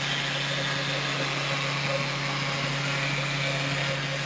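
CNC engraving machine for styrofoam moulds running steadily, a constant low hum with a hiss over it.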